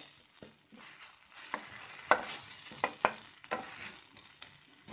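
Wooden spatula stirring and scraping onion and tomato masala frying in a pan, with a soft sizzle and irregular scrapes and knocks of the spatula against the pan as the tomatoes cook down.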